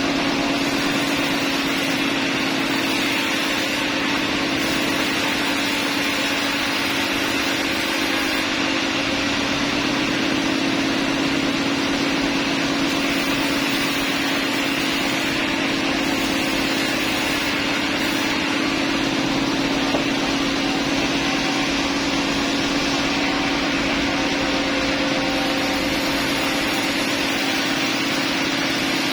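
Sawmill machinery running steadily with a constant, unchanging hum.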